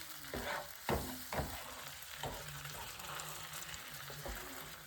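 Beaten egg and milk sizzling steadily in hot olive oil in a small frying pan, with a few short scrapes of a cooking utensil against the pan in the first couple of seconds as the egg is pushed in from the sides.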